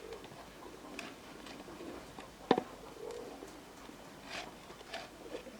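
Pigeons cooing in low, soft notes, with scattered light clicks and one sharp knock about two and a half seconds in.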